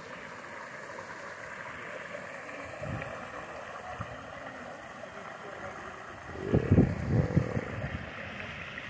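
Steady hiss of running water. About six and a half seconds in there is a short, louder burst of low, muffled sound.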